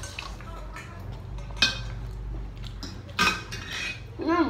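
Metal spoons scraping and clinking against stainless steel bowls while eating, with a few sharp clinks, the clearest about a second and a half in and again about three seconds in.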